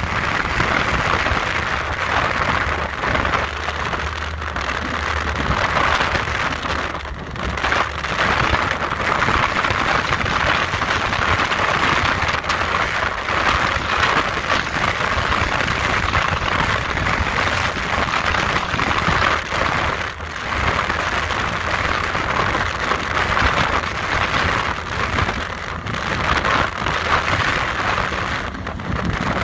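Powerboat underway at speed: a steady rush of wind and water over the boat, with the engine droning underneath, briefly dropping a couple of times.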